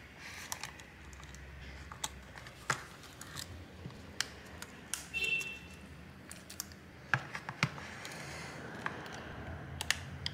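Irregular small plastic clicks and taps as the top plastic cover plate of a phone is fitted and pressed down onto the frame by hand, with one brief high squeak about five seconds in.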